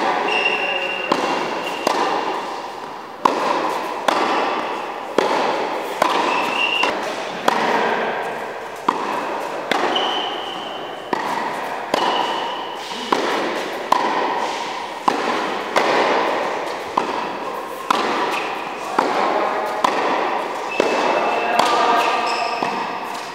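Tennis balls struck with rackets in a steady rally, about one hit a second, each crack echoing in an indoor tennis hall, with tennis shoes squeaking on the court now and then.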